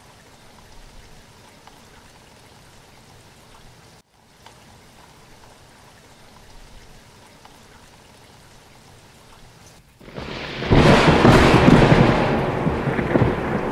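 A steady, faint hiss of rain, then about ten seconds in a loud clap of thunder that rumbles and slowly fades.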